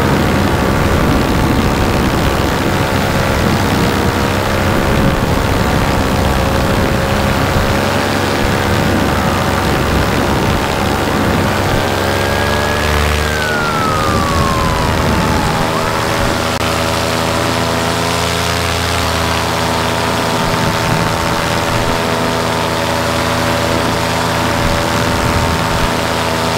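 Vittorazi Moster 185 two-stroke paramotor engine and propeller running steadily in flight. The engine note dips about halfway through, then holds steady.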